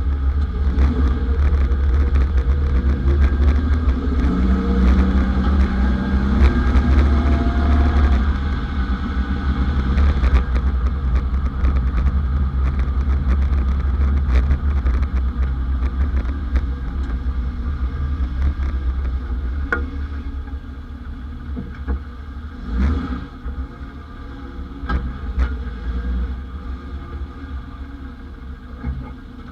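A 1991 Ford Explorer on the move, with a steady low rumble that eases after about twenty seconds. Several sharp knocks come through near the end, likely the unidentified suspension noise being chased.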